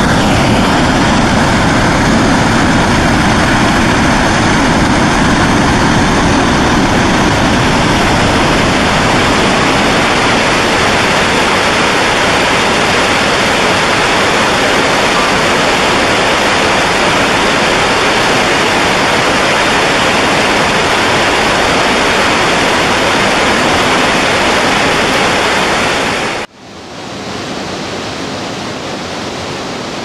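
Waterfall: a heavy, steady rush of falling water. About 26 seconds in it cuts off abruptly and comes back quieter.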